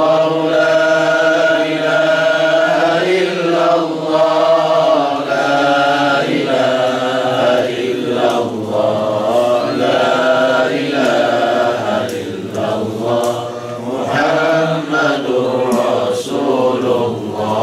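Islamic devotional chanting: voices chanting together in long, drawn-out notes that glide from one pitch to the next, without pause.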